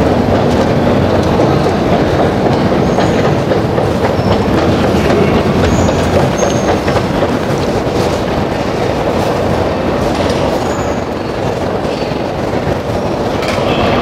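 Steady, loud rumble of a Moscow metro escalator and the station's machinery, easing slightly a little before the end, with a few faint short high-pitched beeps.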